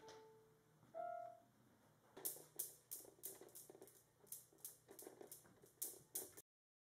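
Two electronic keyboard notes, one at the start and a louder, higher one about a second in, as a kitten steps on the keys. From about two seconds in, a run of sharp metallic clicks, about three a second, from the steel balls of a Newton's cradle batted by kittens. The clicks cut off abruptly near the end.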